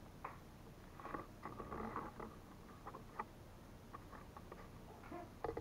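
Faint handling noise from a webcam and its USB cable held and turned in the hand: small scattered clicks, taps and rustles.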